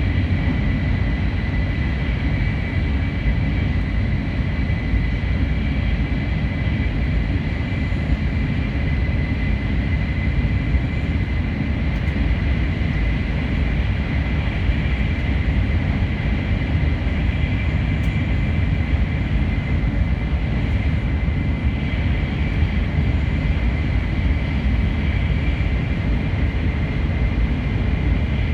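Steady running noise heard inside a car of an N700 series 8000 Shinkansen at speed: a deep, even rumble with a thin high whine held steady over it.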